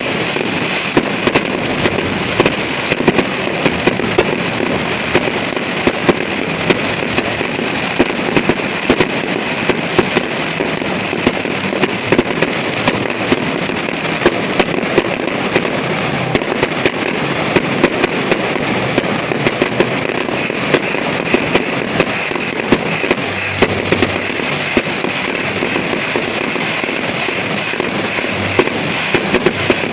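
Fireworks going off: a dense, steady crackle of many small bangs, with sharper, louder pops scattered throughout.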